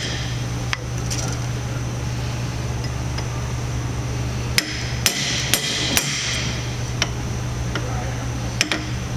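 Hammer striking a chisel set against a bearing lock nut, knocking the nut round on the shaft to tighten it until the bearing has no play. Sharp metallic strikes with a short ring: one about a second in, a run of four about half a second apart in the middle, then several more near the end, over a steady low hum.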